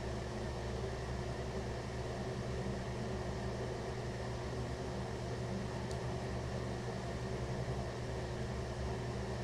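Steady low hum with an even hiss of constant background noise, unchanging throughout, with one faint tick about six seconds in.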